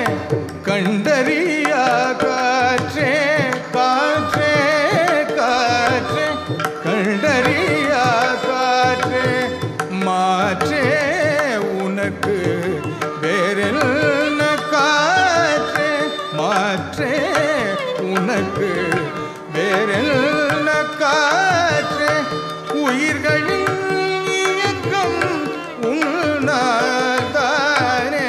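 Carnatic music: a male voice sings with a violin following the melody, while mridangam and ghatam keep up the rhythm over a tanpura drone.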